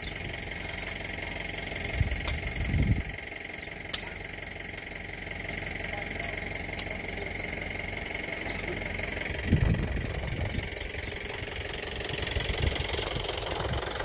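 JCB 3DX backhoe loader's diesel engine idling steadily, with two brief louder low rumbles, about two seconds in and near ten seconds.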